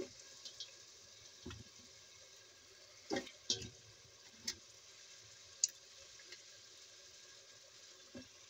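Metal spatula stirring chicken pieces in a little liquid in a metal cooking pot: a handful of short clinks and scrapes against the pot over a faint, steady simmering hiss.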